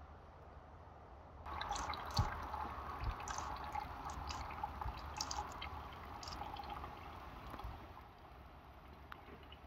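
Liquid dripping and trickling, with quick irregular drips that start about a second and a half in and fade near the end.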